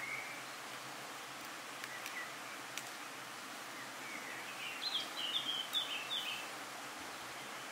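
A songbird sings a quick, jerky phrase of rapid notes about five seconds in, after a couple of single chirps earlier, over a steady outdoor background hiss.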